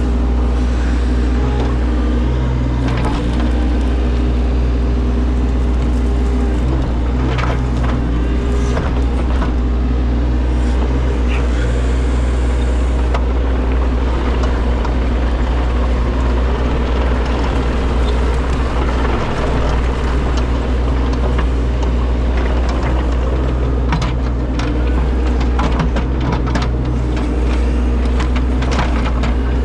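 Compact excavator's engine running steadily, with scattered sharp clanks and knocks.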